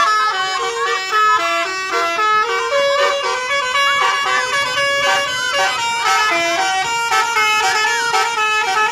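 Bus 'telolet' musical air horns of the Basuri type playing melodies as a run of stepped notes, several horns sounding at once and overlapping.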